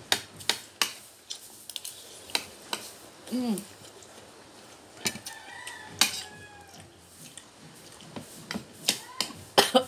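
Spoons clinking and scraping on plates during a meal, in many short sharp clicks. A rooster crows once, fainter, about five seconds in.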